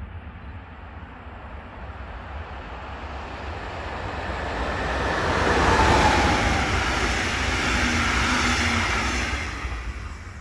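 DB Class 114 electric locomotive and red double-deck coaches passing at speed: the rail and wheel noise builds up, is loudest about six seconds in, holds while the coaches go by, then fades near the end.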